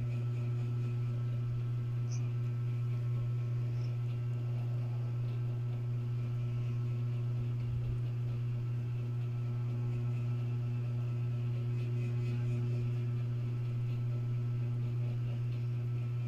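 Steady low machine hum with faint higher tones above it, unchanging throughout.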